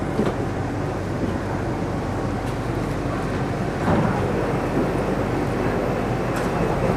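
Steady running noise of a Bangkok MRT Yellow Line monorail train heard from inside the passenger car, a low rumble and hum, with a brief knock about four seconds in.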